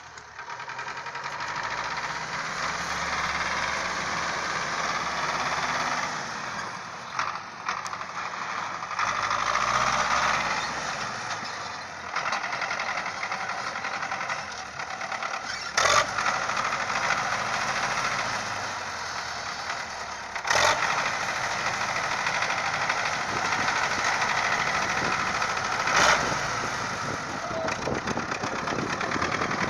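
An engine running, its speed rising and falling at times, with three sharp knocks.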